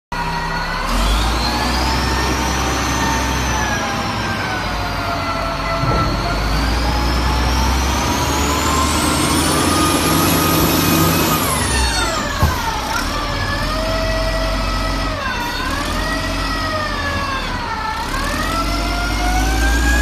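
A TIDER 6-ton wheel loader's diesel engine running under load, with a low drone and a high whine that rises and falls as the engine revs up and down, dipping three times in the second half. A single sharp knock about twelve seconds in.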